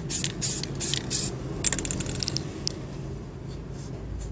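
Short bursts from a Samurai aerosol spray can of clear lacquer, hissing onto the surface of a bucket of water, about three a second for the first second and a half; the clear is sprayed to thin the paint film that has begun to set on the water. Then a few sharp clicks about two seconds in, over a steady low hum.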